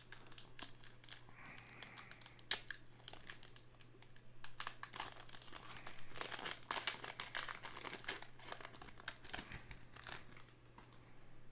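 Topps Heritage baseball card pack wrapper crinkling and tearing as it is peeled open by hand, a sharp crackle about two and a half seconds in and the crinkling busiest through the middle.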